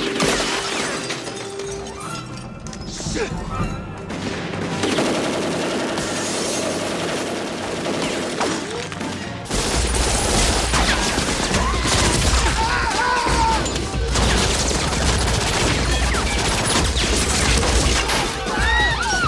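Movie-soundtrack bursts of MAC-10 submachine-gun fire, rapid and repeated throughout. About halfway through, a deep, bass-heavy film score comes in under the shooting.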